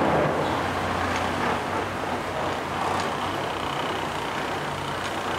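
Tour boat's engine running at a steady drone, with the rush of water and wind over it.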